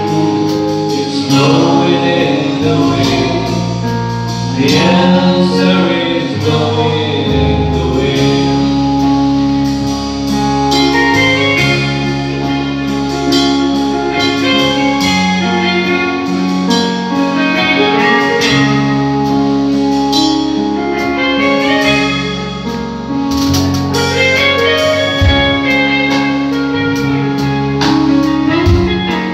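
Live band playing: electronic keyboard, electric and acoustic guitars, and drum kit. A wavering lead melody rides over sustained chords and bass notes.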